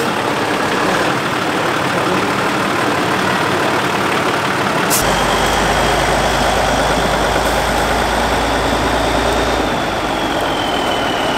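Six-wheeled trial truck's diesel engine running as it crawls up and over a steep bank, with a faint high whine joining about halfway through.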